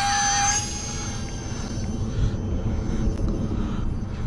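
Twin electric ducted fans of a UMX A-10 Thunderbolt II model jet whining at high throttle on a hand launch. About half a second in the whine eases and fades as the plane flies off, under wind noise on the microphone.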